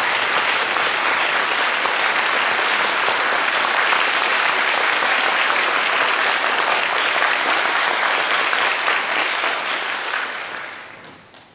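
Audience applause greeting the conductor as he takes the podium: steady clapping that dies away over the last second or so.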